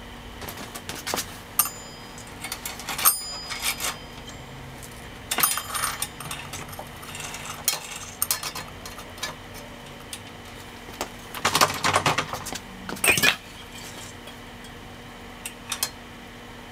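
A steel roller chain being handled and fitted around a mini bike's rear sprocket by hand: irregular metallic clinks and rattles, in a few short flurries with quieter gaps between.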